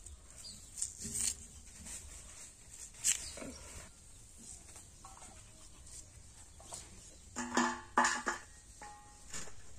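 Red onions being sliced against a boti blade, giving scattered short crunches and clicks, with pieces dropping into a steel plate. About seven and a half seconds in comes a brief pitched call, the loudest sound.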